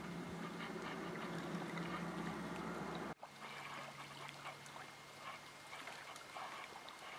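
Faint lake-shore ambience of small waves lapping at the bank, with a low steady hum underneath; the background changes abruptly about three seconds in.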